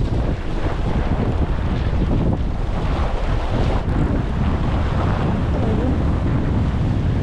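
Steady wind rumbling on the microphone, over the wash of shallow sea water.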